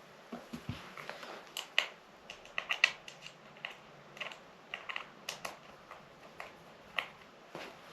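A string of irregular sharp clicks and taps, about two dozen, from small hard parts and tools being handled.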